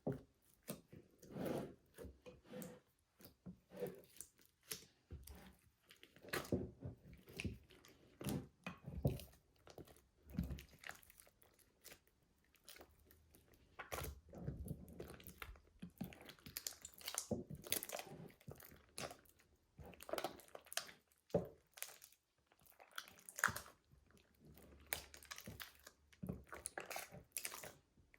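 Slime being kneaded and mixed by hand: irregular sticky squishes, pops and crackles, easing off briefly about halfway through.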